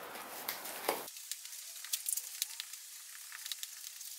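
A freshly cast aluminium flywheel, still very hot, being dug out of its sand mould with pliers. There is a faint hiss with scattered crackles and small ticks as the sand is broken away from the metal, and one knock about a second in.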